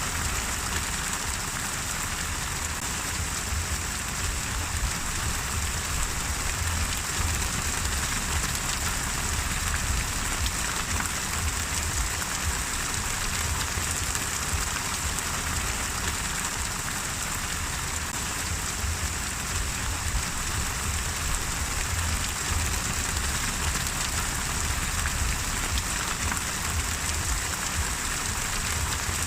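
Steady rain falling: a dense, even hiss of drops with a low rumble underneath, unchanging throughout.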